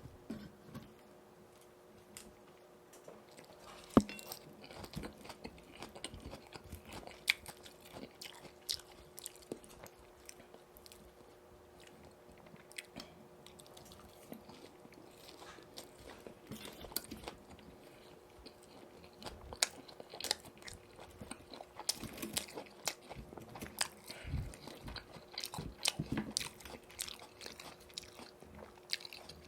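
Close-miked eating of crispy boneless fried chicken in yurinki sauce: irregular crunching bites and chewing, with a sharp crunch about four seconds in.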